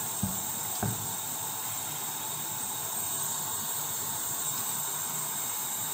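A steady hiss, with two soft knocks in the first second.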